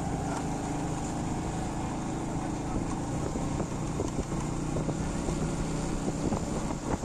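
Steady low rumble of a vehicle running, with a hiss over it.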